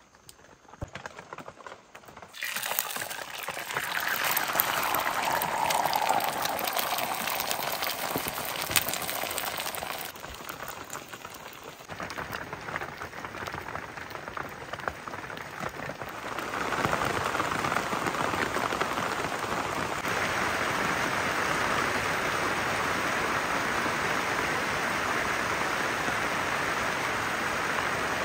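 Eggs frying in hot oil in a pan: a sudden sizzle starts a couple of seconds in as the egg hits the oil and eases off after several seconds. A strong, steady sizzle builds again a little past halfway.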